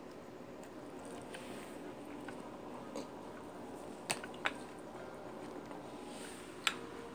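Steady low room hum with a few sharp clicks, two close together a little after four seconds in and another near the end.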